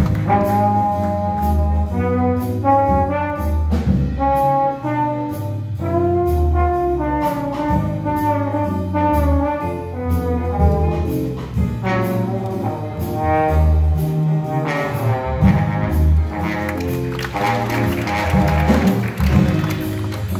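Student jazz big band playing live: trumpets, trombones and saxophones carrying the melody in moving chords over a low bass line.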